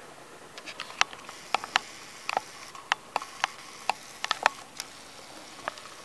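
Fingers handling a small cardboard retail box with a plastic window: over a dozen light, irregular clicks and taps.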